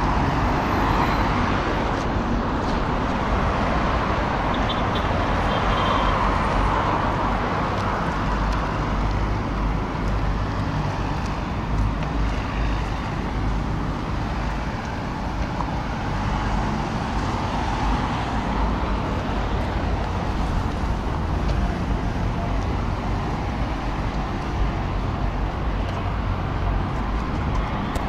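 Steady road-traffic noise from cars on a wide city avenue: an even hum with a strong low rumble.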